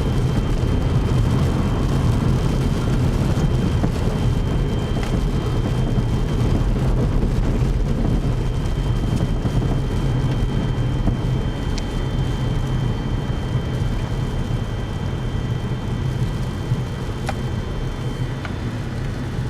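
Inside a moving car: steady engine hum and the rumble of tyres on a snow-covered road, with a faint steady high whine.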